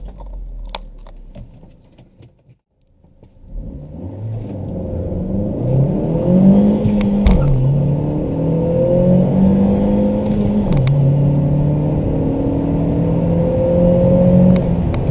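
Holden Barina RS's 1.4-litre turbo four-cylinder heard from inside the cabin, accelerating hard from rest after a short quiet lull. The engine note climbs through the revs, drops sharply at a manual gear change about halfway through and again about three-quarters of the way in, and rises again in the next gear.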